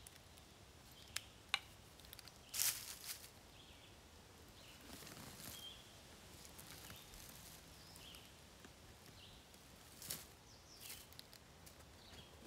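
Dry leaves and a fur-wrapped bundle rustling as it is handled and turned over on the forest floor. Two sharp clicks come just over a second in, a louder rustle just under three seconds in, and more short rustles about ten seconds in.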